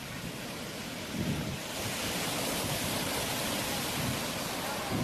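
Ocean surf: a steady rush of waves with low rumbling surges. A wave swells into a louder, hissing wash about two seconds in.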